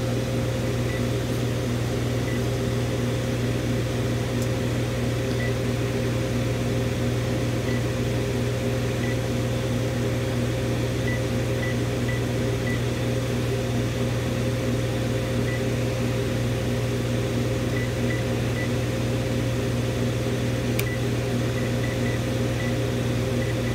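Steady low hum throughout, with faint short beeps scattered through it as keys are pressed on a Panasonic cordless phone handset's keypad, and one light click near the end.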